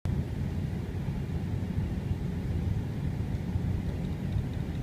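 Airliner cabin noise as the plane rolls along the ground: a steady low rumble of the engines and wheels heard through the fuselage.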